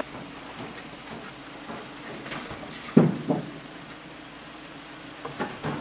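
Rubber car tyres being thrown onto a pickup truck's loaded bed: a heavy thud about three seconds in with a smaller bounce right after, and a few lighter knocks near the end, over a steady low engine hum.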